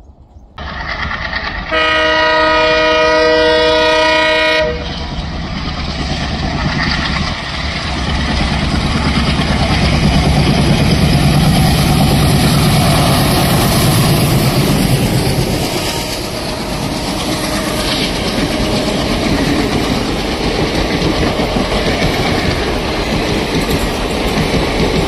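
Twin ALCO diesel locomotives passing with a train: a multi-tone horn is held for about three seconds, then the locomotives' engines chug by loudly and the coaches follow with a clickety-clack over the rail joints.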